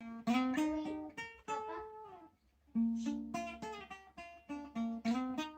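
Acoustic guitar picking a country-style melody, single notes and double-stops that ring and fade, several slid up into pitch, in short phrases.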